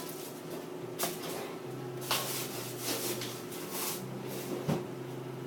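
Kitchen handling noises: about five short knocks and clatters over a steady low hum.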